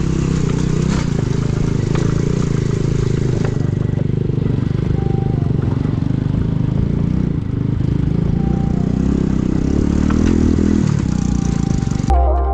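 Motorcycle engine running steadily under load as it climbs a steep trail. Music cuts in near the end.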